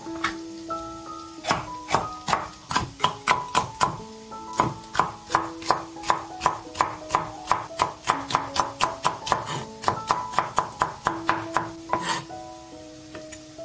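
Rapid knife chopping on a wooden cutting board, about four sharp strikes a second, starting about a second and a half in and stopping near the end, over background music.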